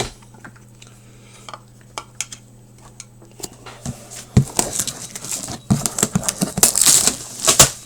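A sealed hobby box being opened by hand: the seal is broken and the box is handled, with scattered clicks, taps and crinkling rustles. These grow busier about halfway through.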